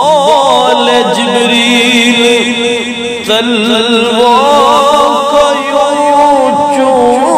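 Wordless vocal interlude in a naat: layered voices chant a wavering melody with heavy vibrato over a steady low drone, and a new phrase comes in about three seconds in.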